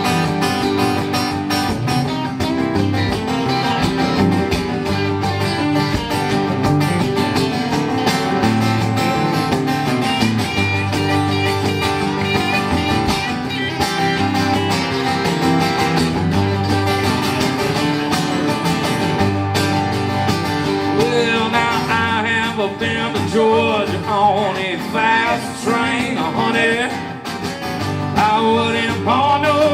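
Country music: a band with guitars playing an instrumental break between verses. In the second half a lead instrument bends and wavers its notes.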